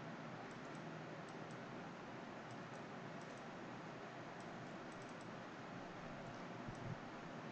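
Faint computer mouse clicks and keyboard key presses, scattered over a steady hiss, with a soft low bump near the end.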